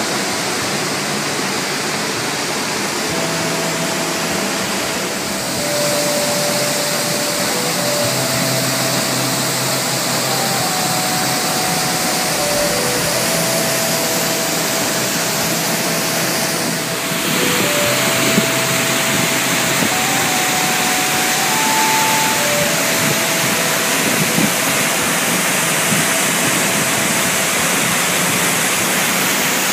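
Waterfall pouring into a pool: a steady rushing of falling water that shifts slightly in level about five and seventeen seconds in. A faint slow melody of held notes runs over it.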